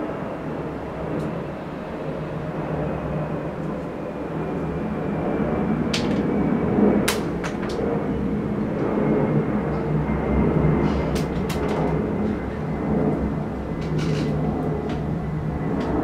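Steady low mechanical rumble with a faint hum. A scattering of sharp clicks comes through it, the first about six seconds in and more around eleven and fourteen seconds.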